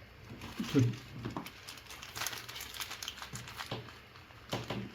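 Small handling sounds: scattered light clicks and crinkling rustles, with a brief vocal sound about a second in.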